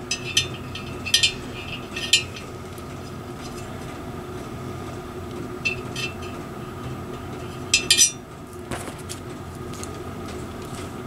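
Light metallic clinks and taps as a steel telescoping bore gauge is set inside a motorcycle cylinder barrel's bore and then handled against a digital caliper. There are several clinks in the first couple of seconds, a pair about six seconds in, and a quick cluster near eight seconds.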